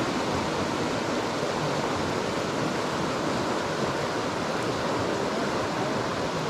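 Mountain river water rushing over rocks, a steady, even rush of water.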